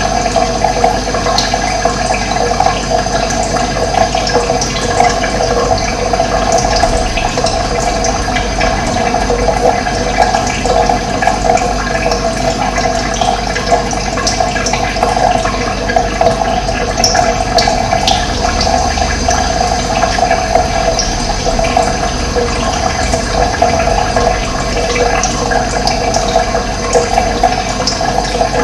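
Running water, a steady, even rush with no pauses.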